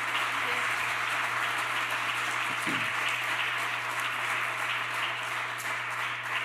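Audience applauding in a steady, dense round of clapping.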